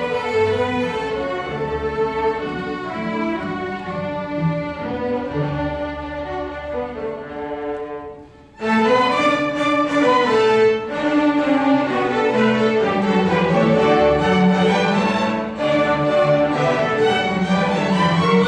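Student string orchestra of violins, cellos and a double bass playing. The music tapers to a brief pause about eight seconds in, then the full ensemble comes back in louder.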